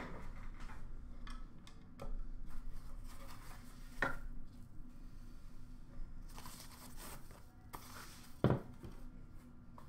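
Wooden box of a 2015 Upper Deck Team Canada Master Collection set being opened and unpacked: its wooden lid and panels knock and clunk a few times, the loudest about eight and a half seconds in, and white paper wrapping rustles as it is pulled out.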